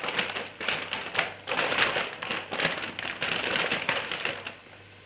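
Plastic spinach packaging crinkling and rustling as it is handled, an irregular crackly rustle in bursts that stops shortly before the end.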